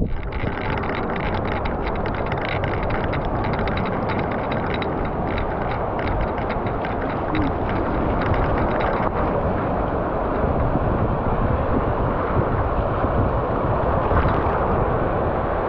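Wind noise on the microphone over the steady wash of surf running up the sand.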